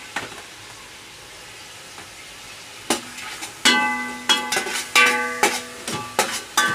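Ginger sizzling in hot oil in a stainless steel pot with a steady hiss; about three seconds in, a spatula starts stirring, knocking against the pot in a quick irregular run of ringing metallic clangs.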